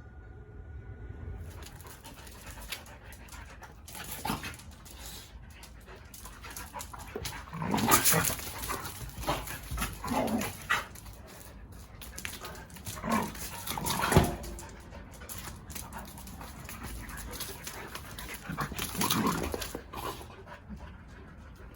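Dogs playing and panting, with several loud, short dog vocal outbursts spaced a few seconds apart, the loudest in the middle stretch.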